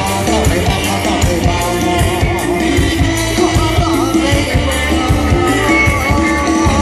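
Thai Isan band music: a full band playing to a steady drum beat, with a wavering melody line over it.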